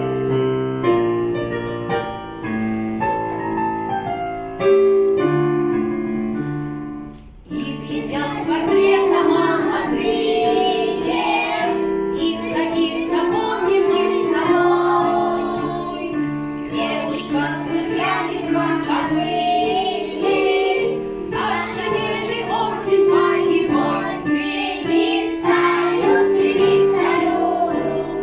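Song with keyboard accompaniment: an instrumental introduction of piano-like notes, then about seven seconds in children start singing over the accompaniment.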